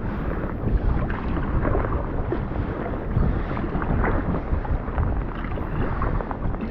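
Wind buffeting the microphone over choppy sea water slapping and splashing around a kayak, in an irregular rush with short splashes throughout.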